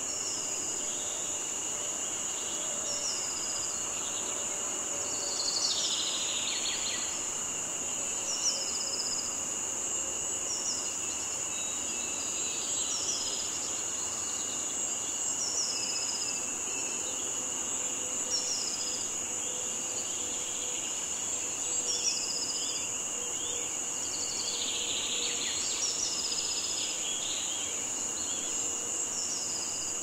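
Insects droning steadily at a high pitch, with a second, lower steady trill beneath. A short high chirp repeats about every two and a half seconds, and twice there is a brief burst of busier chirping.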